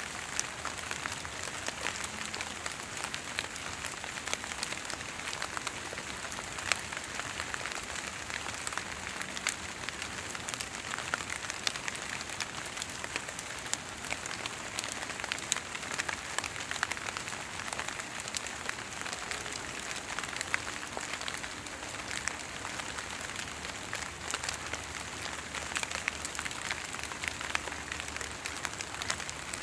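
Fog drip: water droplets gathered on the leaves and needles of tall trees falling onto the foliage below, making a steady patter of many small irregular drips, much like light rain.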